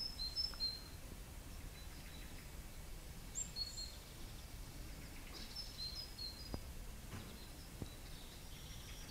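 Small birds chirping now and then, in short high calls near the start, around the middle and a little past the middle, over a quiet, steady outdoor background with a few faint ticks. Picked up by a small Edutige ETM-006 on-camera external microphone.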